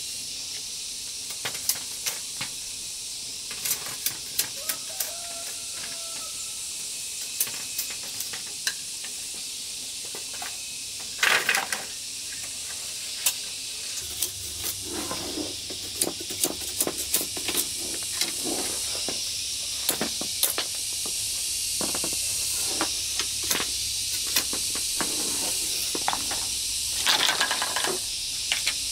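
Machete splitting and shaving a thin bamboo strip: many sharp clicks and cracks, a stretch of scraping in the middle, and two louder rasps, about a third of the way in and near the end, over a steady high hiss.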